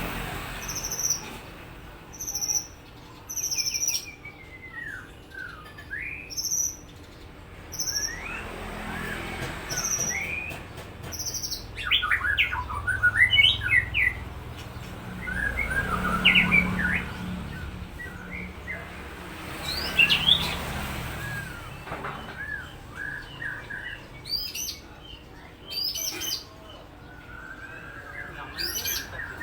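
White-rumped shama (murai batu) singing: short, high, evenly spaced notes, then busier phrases of quick rising and falling whistles and rapid trills, the rolling bursts that fanciers call 'roll tembak'.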